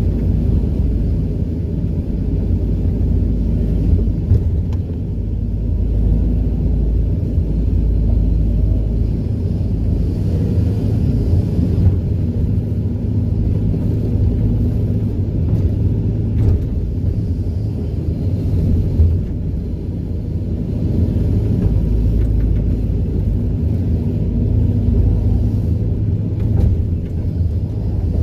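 SANY SY215C crawler excavator working while scooping topsoil: a steady low diesel engine rumble that swells and eases, with a few light knocks.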